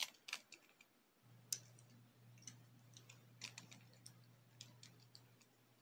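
Faint, scattered clicks and snaps of plastic and metal Beyblade parts (energy layer, disc and driver) being fitted together by hand.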